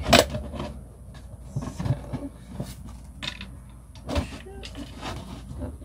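Wooden shelf panels knocking and scraping together as one panel is slid into the slots of another: a sharp knock just after the start over a low scrape, then a few lighter knocks.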